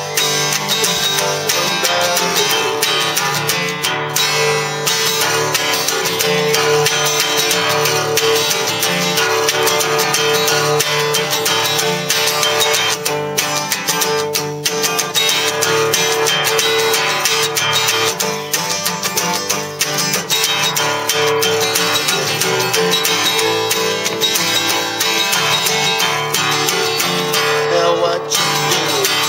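Steel-string dreadnought acoustic guitar playing solo, a continuous instrumental passage with no singing.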